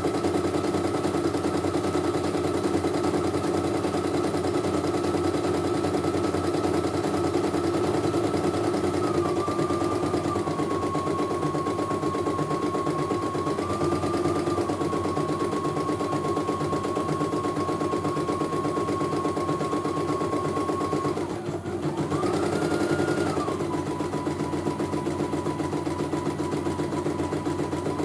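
CNY E900 computerized embroidery machine stitching a design, the needle running in a fast, steady rhythm under a whining tone that steps up and down in pitch a few times. About three quarters of the way through it drops off for a moment, then the whine rises sharply and settles lower as stitching resumes.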